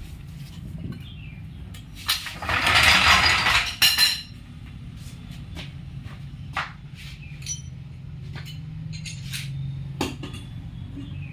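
Scattered metallic clinks and taps of tools on metal over a steady low hum. About two seconds in, a loud harsh hissing burst lasts nearly two seconds and ends in two sharp clicks.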